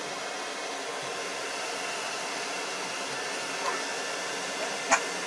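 Handheld hair dryer blowing steadily, with one short sharp click near the end.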